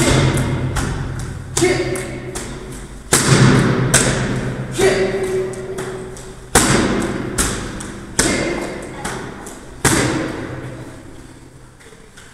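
Kicks and punches smacking into handheld focus mitts: a sharp hit about every second and a half, with lighter hits between, each ringing on in a hard-walled hall.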